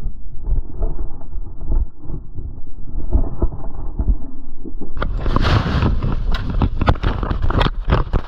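Muffled wind rumble with dull knocks on a body-worn camera. About five seconds in it gives way suddenly to a harsh rushing hiss full of rapid crackles and knocks: avalanche snow pelting and scraping the camera as the skier is swept down.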